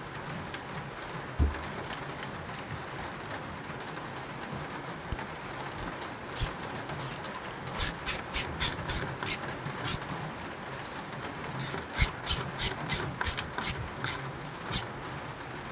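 Ratchet wrench with a 5/16 socket clicking as a fastener on the cut-off saw's carburetor is tightened down snug. A few single clicks come first, then two runs of quick clicks, one about six seconds in and one about twelve seconds in.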